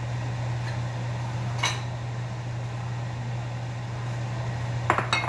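A steady low mechanical hum, with one sharp clink about a second and a half in and a quick run of metal clinks of a utensil against a cooking pot near the end.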